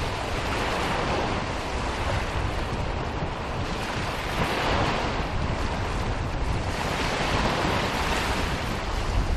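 Surf washing onto a sandy beach, swelling and easing every few seconds, with wind rumbling on the microphone.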